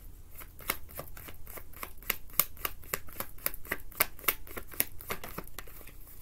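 Tarot deck being shuffled by hand: a quick run of sharp card slaps, about five or six a second, starting just after the beginning and stopping near the end.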